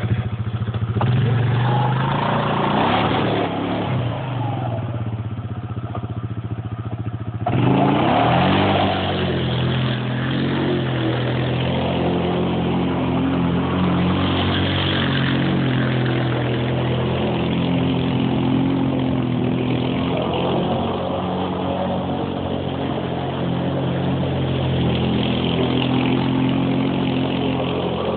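Suzuki Eiger ATV's single-cylinder four-stroke engine running and revving, its pitch rising and falling with the throttle as the quad drives through shallow muddy water. About seven and a half seconds in, the engine note jumps suddenly louder and higher.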